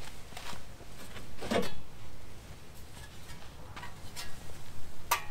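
A few light, scattered knocks and rustles as a removed truck bumper part is picked up and handled.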